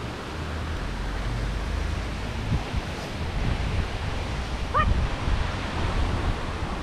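Wind buffeting the microphone in irregular low rumbles over a steady rushing hiss, with one brief rising call about five seconds in.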